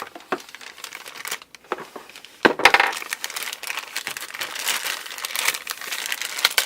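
Toy packaging being handled and unpacked, crinkling and rustling with many small crackles, and a louder crackle about two and a half seconds in.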